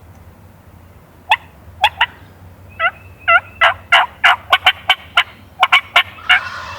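Wild turkey calls: a loud run of about fifteen sharp yelping notes that start about a second in and come quicker and closer together toward the end, ending in a longer, ringing call.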